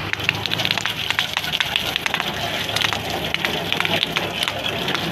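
A stream of water from a hose splashing onto a Toyota Kijang's engine bay, a dense crackling patter of water hitting metal and plastic, with a low steady hum underneath.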